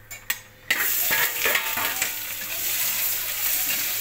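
Chopped onions tipped into hot oil with whole spices in a wok-shaped pan, starting to sizzle suddenly about three-quarters of a second in after a single short knock, then frying steadily with light scraping of a spatula.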